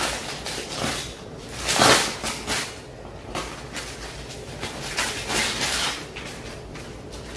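Clear plastic packaging bag crinkling and rustling as it is opened and a tablet case is slid out, in irregular bursts with the loudest rustle about two seconds in.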